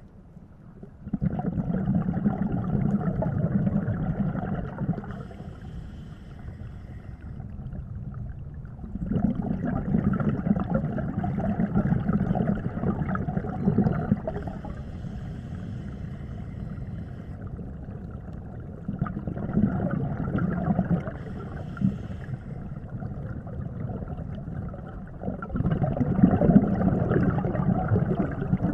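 Scuba diver breathing through a regulator underwater: exhaled bubbles rumble out in four bursts of about three to four seconds each, roughly every eight seconds, with quieter breaths in between.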